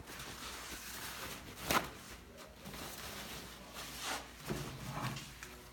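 Paper towel rustling and scrubbing as glue drips are wiped off a plywood workbench, with one sharp knock a little under two seconds in.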